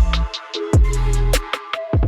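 Background electronic music with a heavy beat: kick drum, deep bass notes and sharp drum hits.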